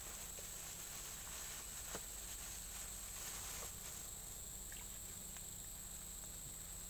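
Steady, high-pitched chorus of insects such as crickets, with a few faint clicks.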